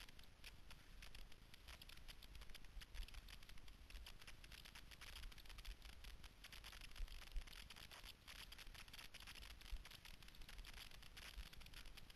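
Faint, crackly hiss of cross-country skis gliding over a groomed snow track, with a low rumble of wind on the camera underneath.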